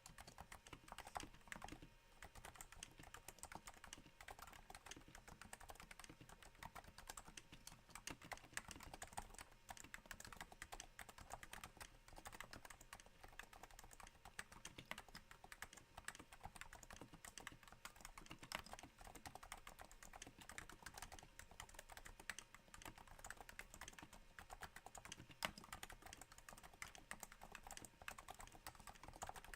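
Steady typing on a Cooler Master Novatouch keyboard with Topre switches silenced by Hypersphere rings, on a thin desk mat. It makes a quiet, dense patter of soft key strokes that sounds a little like rain.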